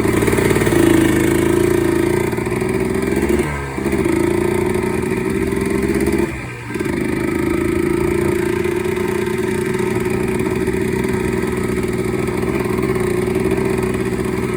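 Yamaha Blaster's two-stroke single-cylinder engine running steadily under riding, its note dropping off briefly twice, about four and six and a half seconds in. The top end is freshly rebuilt and is being ridden gently while it beds in.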